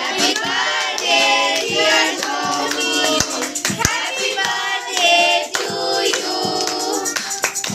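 Several people singing a birthday song together, with hand clapping throughout.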